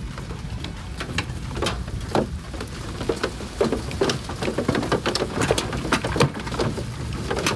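Scattered light clicks and rattles of plastic wiring connectors and clips being worked loose from a car's battery tray, over a steady low rumble.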